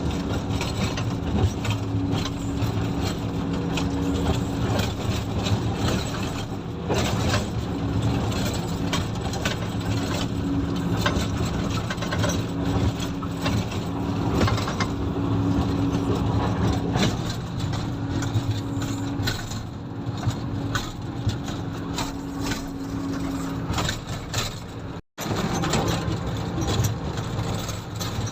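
Komatsu motor grader's diesel engine running steadily at working revs while grading a gravel road, with frequent rattles and knocks from the machine. The sound cuts out for a split second about three seconds before the end.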